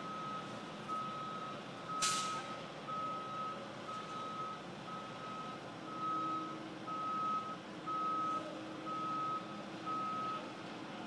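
A box truck's reversing alarm beeping steadily, about one beep a second, with one short sharp hiss about two seconds in. The beeping stops near the end.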